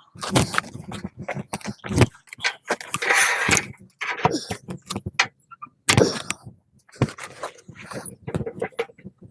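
Irregular knocks, clatters and scrapes of things being handled, with short quiet gaps between them and no motor running.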